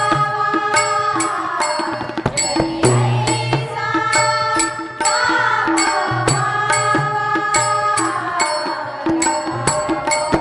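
Women singing a Marathi devotional bhajan together, accompanied by a harmonium's held chords, tabla and small hand cymbals (tal) struck in a steady beat.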